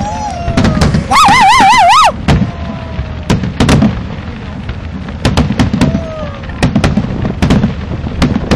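Fireworks display: a run of sharp bangs, several a second at times, with a loud warbling whistle about a second in and a few short falling whistles.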